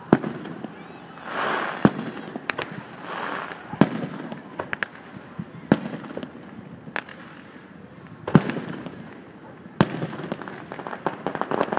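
Aerial fireworks shells bursting, a sharp bang every second or two, with a dense flurry of crackling near the end.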